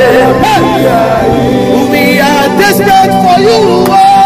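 Worship music: voices singing with wavering, gliding pitch over steady held chords.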